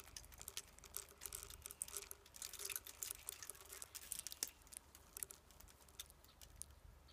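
Eastern chipmunk handling and biting mixed birdseed: quick, irregular, faint clicks and crackles of seeds.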